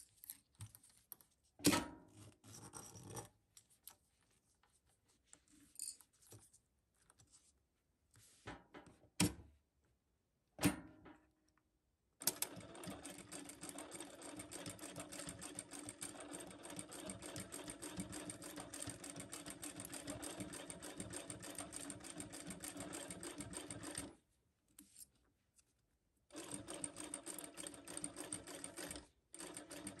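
Consew 7360R industrial direct-drive sewing machine stitching a seam through vinyl mesh pouch material. It runs steadily for about twelve seconds, stops for about two seconds, then runs again in two shorter stretches near the end. Before the first run there are only scattered small clicks and knocks as the work is handled and positioned.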